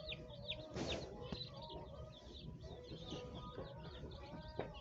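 Many baby chicks peeping together, a steady overlap of short, high cheeps, with a brief rustle about a second in.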